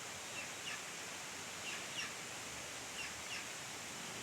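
Steady rain falling, a soft even hiss, with a small bird giving short falling chirps several times, in pairs about a third of a second apart.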